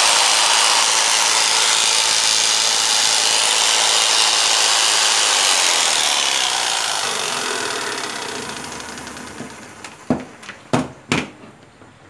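100-volt Japanese-market electric jigsaw running with no load, its blade stroking up and down. About six seconds in it is switched off and winds down over a few seconds, then three knocks as it is put down on the floor.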